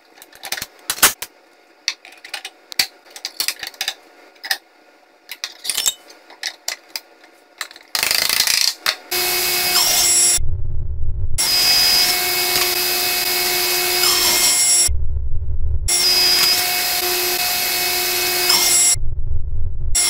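Sharp metal clicks and clinks as the table saw blade is handled and fitted, then, about eight seconds in, the table saw runs with a steady whine while a 4x4 on a sled is pushed through its new sharp blade. The saw sound breaks off for about a second three times.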